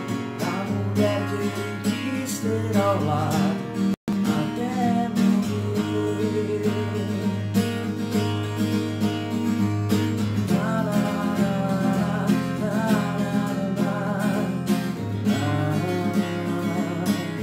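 Acoustic guitar strummed while a man sings a long, drawn-out phrase in Portuguese, holding notes with vibrato. The sound cuts out for an instant about four seconds in.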